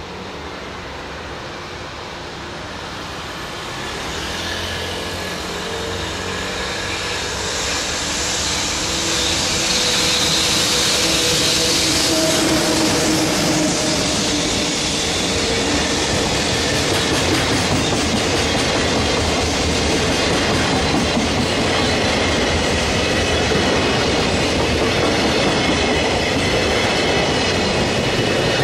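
A container freight train passes: it grows louder over the first ten seconds or so as the locomotive approaches and goes by, then a long string of container wagons rolls past with steady clickety-clack of wheels on the rail joints.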